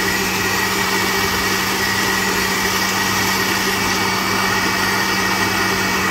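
Panasonic countertop blender running steadily at a constant pitch, puréeing a wet tomato-and-onion masala in its jar.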